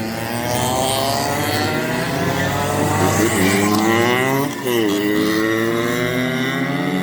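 Go-kart engine revving, its pitch climbing as the kart accelerates, with a brief drop about four and a half seconds in before it climbs again.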